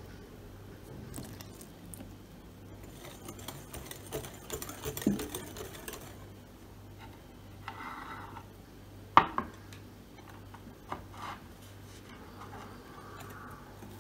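Clicking and clattering of an electric hand blender's wire whisk against a glass mixing bowl, densest a few seconds in. A single sharp knock about nine seconds in is the loudest sound.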